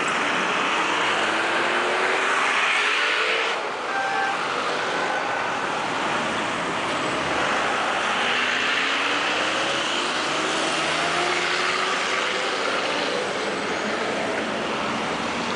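Busy city road traffic: cars, taxis and a bus passing close by, their engines rising in pitch as they pull away, over a steady hiss of tyres and traffic.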